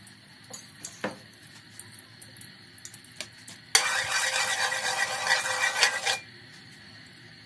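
Metal spatula scraping and stirring across the bottom of an aluminium wok with a little oil in it, a loud rasping for about two and a half seconds that starts about halfway through and stops abruptly.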